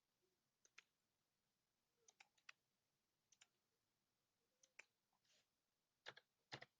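Faint clicks of a computer mouse, mostly in quick pairs, coming irregularly every second or so.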